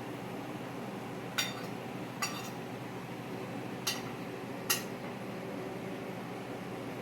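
Four light, ringing clinks of tableware, in two pairs with under a second between the two clinks of each pair, over a steady room hum.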